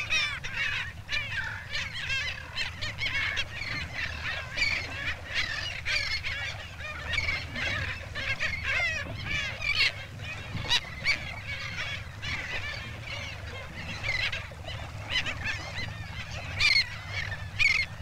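A flock of black skimmers calling: many short, overlapping calls in a dense chorus, with a few louder calls near the end, over a low steady hum.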